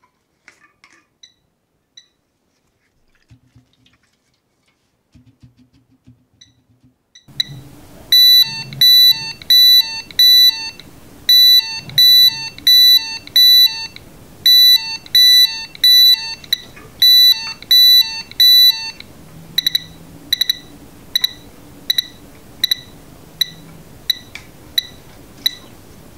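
Piezo buzzer of an Arduino gas-sensor alarm beeping, set off by acetone vapour: loud beeps at one high pitch, about two a second, start about seven seconds in, then in the last third turn into quieter, shorter pips as the readings drop.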